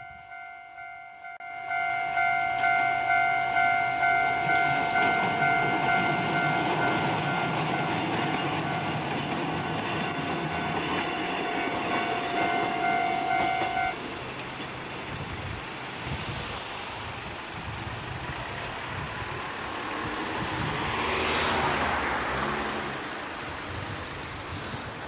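Japanese level-crossing warning bell ringing in a steady pulse of about two strikes a second while a Kotoden Shido Line train rumbles past over the crossing. The bell stops about 14 s in, leaving road traffic, with one vehicle passing loudly about 21 s in.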